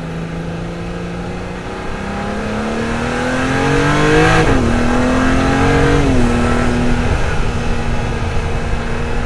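BMW S58 twin-turbocharged straight-six accelerating hard through the gears. The pitch climbs, drops at an upshift about four seconds in, climbs again and drops at a second upshift around six seconds, then holds steady.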